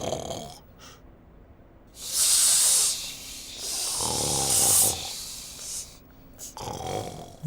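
A sleeping Teletubby snoring slowly: a hissing in-breath about two seconds in, then a louder rasping snore on the out-breath about a second later, and the start of another breath near the end.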